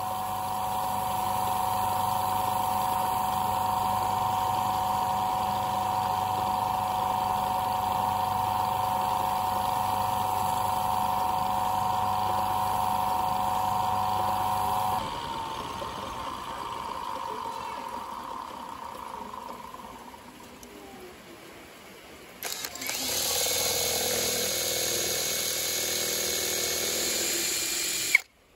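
Wood lathe motor running with a steady hum while sandpaper is held against the spinning bamboo workpiece. About halfway through the hum drops off suddenly and fades away. After a few quieter seconds, an electric drill runs near the end.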